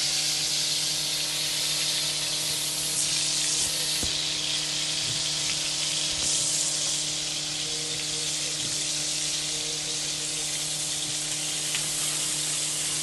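Mutton chops sizzling steadily as they shallow-fry in hot oil in a black frying pan over a medium flame, part-fried before being steamed. A faint steady low hum sits underneath.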